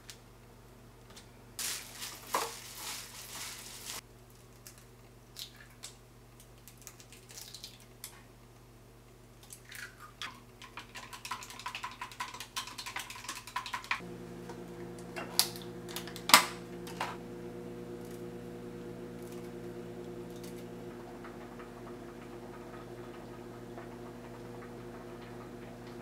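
Kitchen food-prep handling sounds: a rustle early on, then light taps and clinks of utensils and ceramic dishes, and a few sharp clicks over a steady low hum in the second half.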